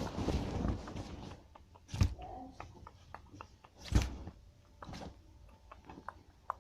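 A quick run of light taps for about the first second, then scattered clicks with two louder thumps, about two and four seconds in.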